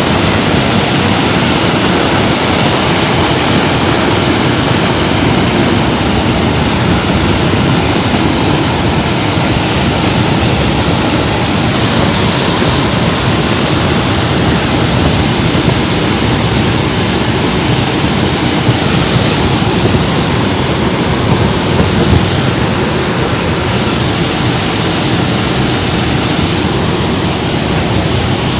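Loud, steady rush of engine and airflow noise inside the cabin of a C-130 Hercules, a four-engine turboprop transport, in flight.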